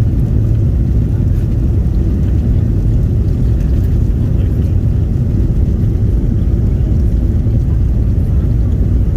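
Cabin noise inside a Boeing 737-800 during takeoff: its CFM56 engines at takeoff thrust and the rushing air make a steady, loud, low rumble.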